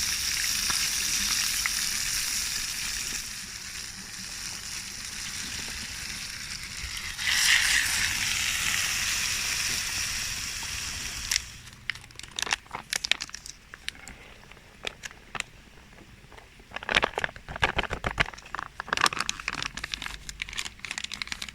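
Food sizzling as it cooks, a steady hiss that swells about seven seconds in and stops abruptly at about eleven seconds. After that, scattered clicks and crinkling.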